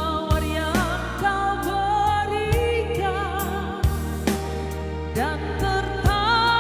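Background music: a song with a singing voice over bass notes and a beat.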